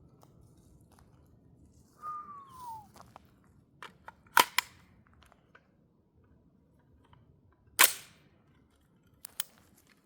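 Gunshots from a Saint Victor 5.56 AR pistol. There are two sharp shots about three and a half seconds apart, with a few fainter cracks around them.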